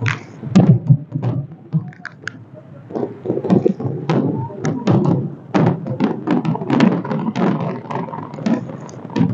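Fireworks display going off in many sharp bangs at irregular intervals, over the murmur of a large crowd.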